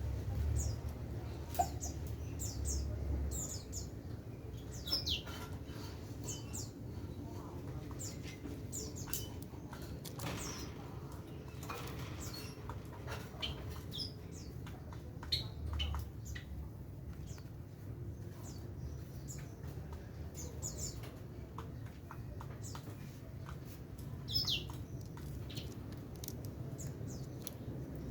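Birds chirping in short, high, scattered calls, with occasional clicks and a steady low rumble underneath.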